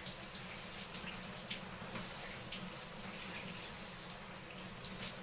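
Water running steadily from a tap, with small splashes scattered through it.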